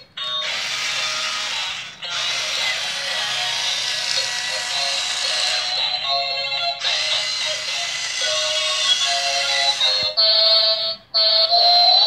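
Tinny electronic melody from a remote-control toy excavator's built-in sound chip, thin and without bass, breaking off abruptly and starting again several times.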